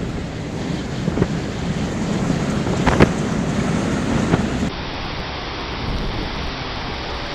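Storm noise: wind buffeting the microphone over a dense rush of wind and water, with a few sharp cracks or knocks, the loudest about three seconds in. About two-thirds of the way through it cuts to a steadier, rain-like hiss.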